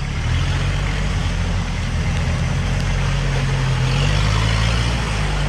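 A 4x4's engine running steadily under load as it drives through mud, with a constant rushing noise over the low engine hum.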